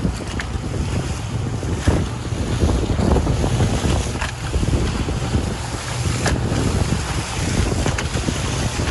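Wind buffeting the microphone and waves splashing around a small outrigger fishing boat under way in choppy sea, with a low steady hum underneath.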